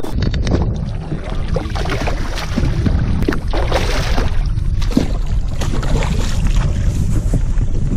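Water splashing and sloshing close to the microphone, with wind buffeting it, as a hooked smallmouth bass thrashes at the surface.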